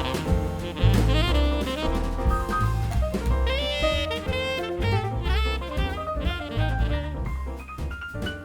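Background music: an upbeat jazz tune with saxophone, bass and drums.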